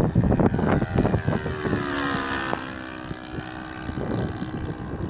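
Engine of a scale radio-controlled model airplane running as the plane flies past overhead, its pitch falling as it passes about halfway through. Wind buffets the microphone near the start and again near the end.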